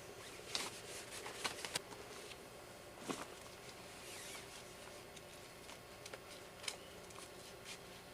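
Tent pole being fed into a pocket on the tent, with nylon fabric rustling and a few sharp clicks and taps from the pole, bunched in the first two seconds and scattered after.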